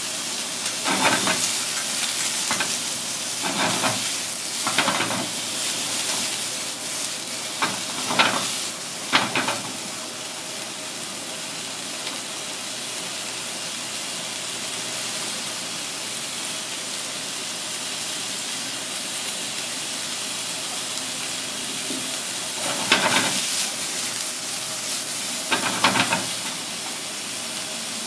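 Steady sizzling hiss of food frying in hot oil. A few short, louder kitchen noises stand out, several in the first ten seconds and two near the end.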